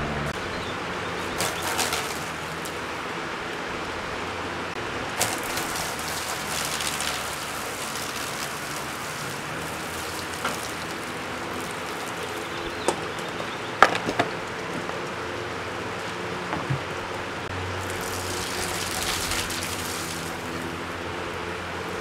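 Lasko box fan running while soaked in soapy water: a steady whir with the spattering of liquid flung off the blades, swelling now and then, and a few sharp clicks about two-thirds of the way through.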